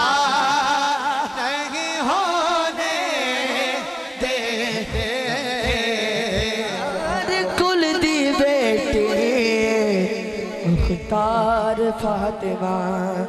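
A man singing a naat in long, drawn-out melismatic phrases, his voice wavering through quick ornaments, over a steady low drone. A new phrase begins about eleven seconds in.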